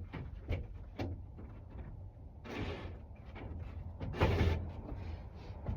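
Clicks and knocks of tools and hands working on a wooden bed frame, with two short rasping noises, one about halfway through and one later.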